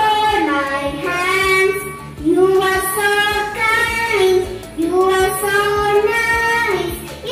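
A young girl singing a song solo, with long held notes that slide between pitches.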